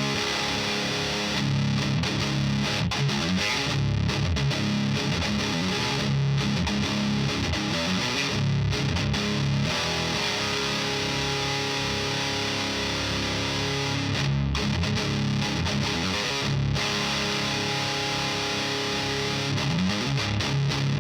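Electric guitar played through a Diezel VH4 preamp pedal set for high-gain distortion, running straight into the power amp of an Orange Pedal Baby. It plays continuous distorted riffs and chords with only momentary breaks.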